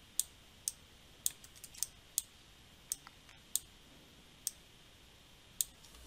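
Computer mouse clicking: about ten short, sharp clicks at uneven intervals.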